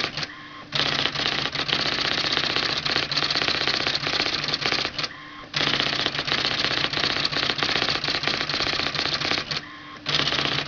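IBM Electronic Typewriter Model 95 printing out text automatically with right-margin justification: a rapid, continuous stream of character strikes over a steady motor hum, broken by three short pauses of about half a second, near the start, about halfway through and near the end.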